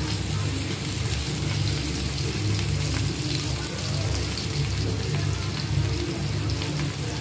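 Onions, garlic and tomatoes sizzling steadily in oil in a frying pan, with a steady low hum underneath.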